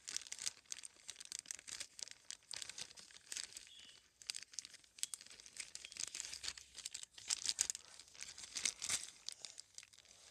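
Paper and a plastic bag crinkling and rustling as they are handled, in short irregular crackles.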